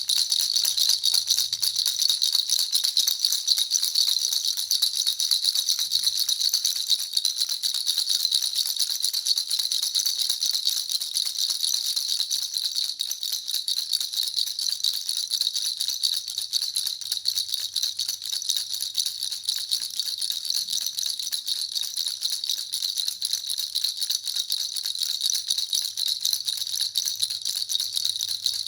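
Baby rattle (jhunjhuna) shaken without a break: a fast, dense rattle with a high metallic jingle ringing over it.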